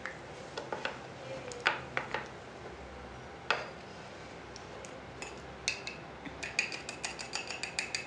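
Light clicks and clinks of small hard makeup items being handled. There are a few scattered taps at first, then a quick run of small, slightly ringing clinks in the second half.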